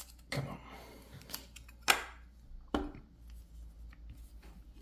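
Hard plastic handling sounds: a short scrape, then a sharp click about two seconds in and a second knock shortly after. A trading card in a rigid plastic case is being fitted onto a clear acrylic display stand.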